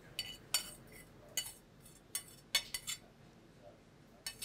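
A metal utensil clinking against a pan and small cast iron pots as cooked vegetables are spooned out: about seven short, ringing clinks, most in the first three seconds and one more near the end.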